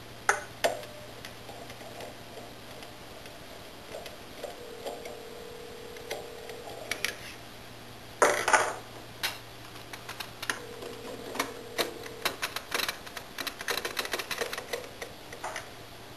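Clicks, knocks and clatter of a Hettich Rotofix 32A benchtop centrifuge's rotor parts being handled during a rotor swap: a tool at the rotor fixing, then a swing-out rotor with its buckets set in place. A louder half-second rasp comes about eight seconds in and a quick run of light clicks fills the last few seconds, over a steady low hum.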